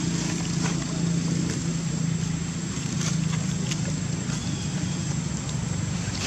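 Steady low engine-like hum, as of a motor vehicle idling, with a few light clicks and rustles of dry leaves scattered through it.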